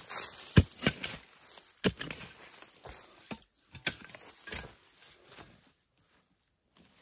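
A hoe chopping into dry, root-filled soil in a series of sharp strikes, with loose dirt pattering down between them. The strikes thin out and stop about two thirds of the way through.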